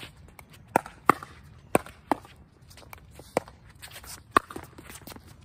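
Pickleball paddles striking a hard plastic outdoor ball in a fast rally: about six sharp pops at uneven spacing, the ball going back and forth across the net.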